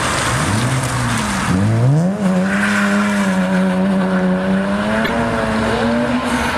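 A car engine revs up twice and is then held at high, steady revs for several seconds while the tyres squeal as the car drifts.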